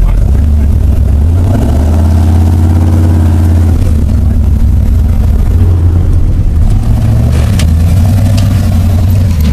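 A vehicle engine running loud with a deep low note, revving up and settling back, with a few sharp clicks near the end.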